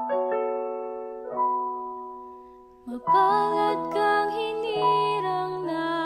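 Slow church music: sustained keyboard chords that fade, then about three seconds in a singing voice with vibrato comes in over held chords and a bass line.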